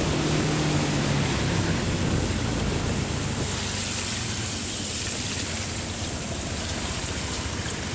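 Scooter engine hum with a steady rush of wind and tyres on a wet road, heard from on board while riding in the rain; the engine hum fades about two seconds in, leaving the even rushing noise.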